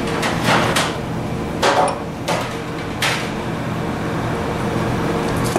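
Several short crunching and knocking sounds from eating crispy breaded fish sticks at a table, bunched in the first three seconds, over a steady low hum.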